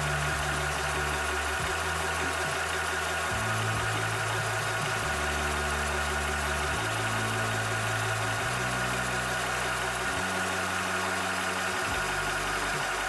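Cobra high-pressure PCP air compressor running steadily while pumping, with a constant mechanical drone and a steady high whine.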